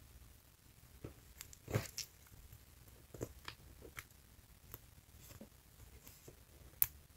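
Sticky jiggly slime being stretched and worked by hand, giving scattered faint sticky clicks and small pops, with a slightly louder squelch about two seconds in and a sharp click near the end.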